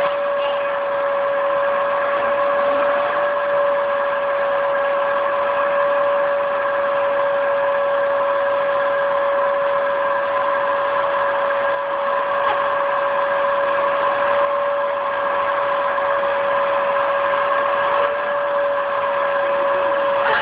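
Vacuum cleaner motor running steadily with an even, high whine.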